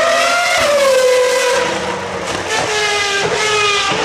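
Naturally aspirated V10 Formula 1 engine screaming at high revs as the car passes, its pitch falling about a second in; more high-pitched engine notes follow in the second half.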